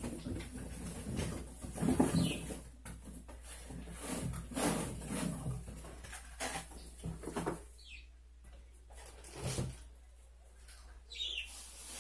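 Rustling of plastic bags and knocks of frozen packages being shifted about inside a chest freezer, thinning out in the second half, with a few short high chirps at intervals.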